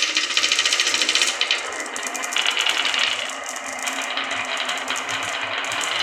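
Many marbles rolling and clattering down a wooden HABA marble run, a dense, continuous stream of rapid clicks and rattles.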